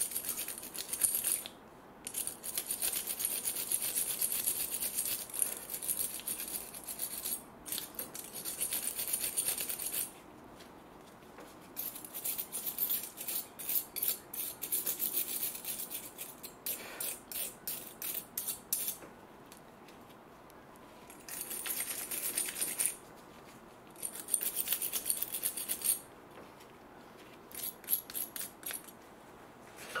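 Stiff wire brush scrubbing the pad slide areas of a 2009 Mini Cooper's front brake caliper carrier clean of dirt, in bouts of rapid back-and-forth scratching strokes with short pauses between them.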